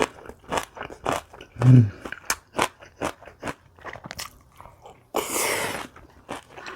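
Close-up mouth sounds of crunching and chewing kimchi, with many small wet crunches. There is a short low sound just under two seconds in, and half a second of hissing rush a little after five seconds.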